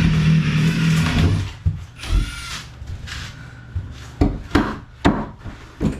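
Wood being pried and scraped during floor demolition: a loud rubbing, scraping stretch for about the first second and a half, then several sharp knocks of wood.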